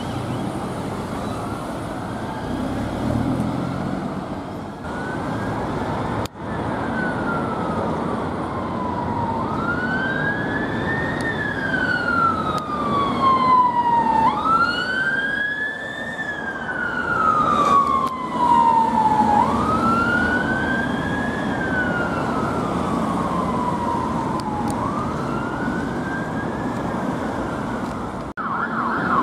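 Emergency siren on a fire service response van, sounding a slow wail that rises quickly and falls slowly about every five seconds over passing road traffic. Just before the end it switches to a fast warble.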